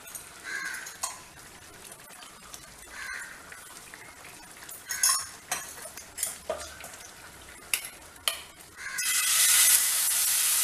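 A ladle stirring and clinking in a steel bowl of green gram dosa batter, with scattered light scrapes and clicks. About nine seconds in, a loud steady sizzle starts as batter is poured onto a hot iron dosa tawa.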